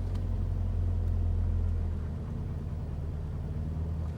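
UAZ Patriot's engine running under way, a bassy drone heard from inside the cabin; about halfway through its note shifts and it gets slightly quieter.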